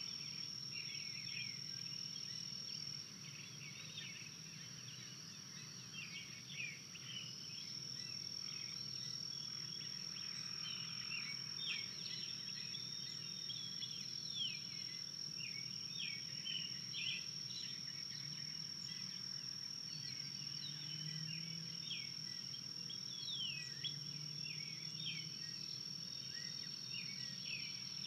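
Many short, high bird chirps and calls, some rising and some falling, over a steady high-pitched whine with a faint low hum beneath.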